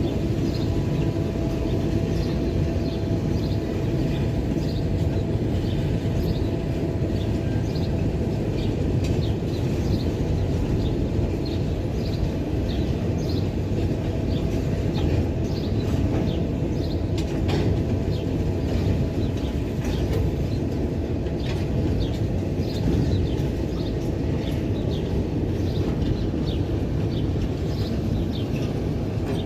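Empty freight train running, its diesel locomotives and empty wagons making a steady heavy rumble, with many short high clicks and squeaks from the wheels and cars. A faint steady tone fades out in the first few seconds.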